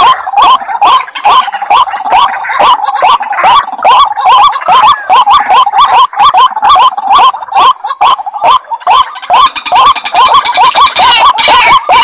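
White-breasted waterhens calling: a loud, unbroken run of quick, repeated upward-hooked notes, about three a second, with other notes overlapping. This is the call that hunters play to draw waterhens out of cover.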